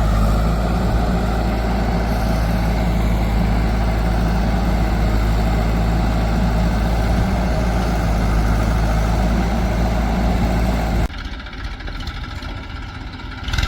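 Heavy diesel engine running steadily, with a deep, even hum. About eleven seconds in it cuts off abruptly to a quieter engine sound.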